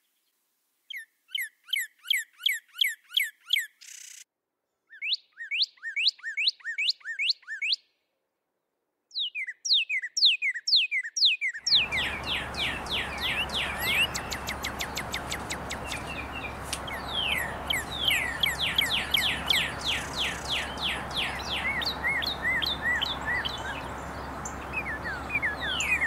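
Male northern cardinal singing: phrases of quickly repeated down-slurred whistles, several a second, broken by short pauses. About halfway through, a steady background hiss and low hum come in under the song.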